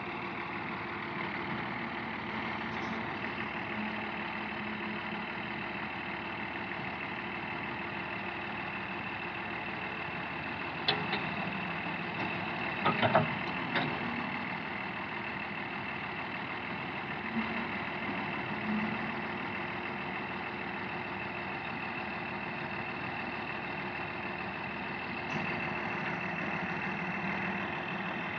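Diesel engines of an excavator and a farm tractor running steadily while the excavator loads earth into the tractor's trolley. A few sharp knocks stand out about eleven seconds in and again around thirteen to fourteen seconds.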